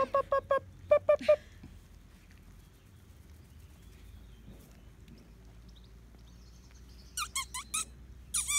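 Cockapoo puppies giving short, high-pitched squeaky yips: a quick, evenly spaced run right at the start, three louder yips about a second in, then a few higher, sharper yelps near the end.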